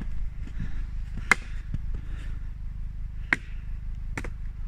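Hammer blows: three sharp strikes, spaced one to two seconds apart, over a steady low rumble.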